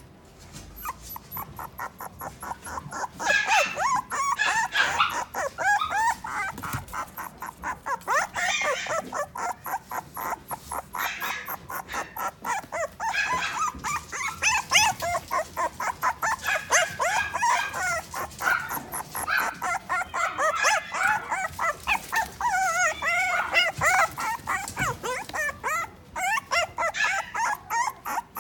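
Puppies whining and yipping in many short, high calls, several a second, getting louder about three seconds in.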